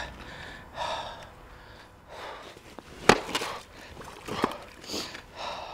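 Short breaths and sniffs from a man at work, with a single sharp knock about three seconds in.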